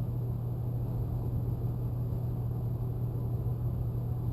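Steady low hum with a rumbling background noise, even throughout and with no distinct events.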